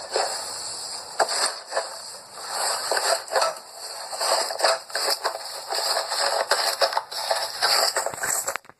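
Slime being squeezed and poked by hand: a continuous run of many short, crackling clicks that stops abruptly near the end.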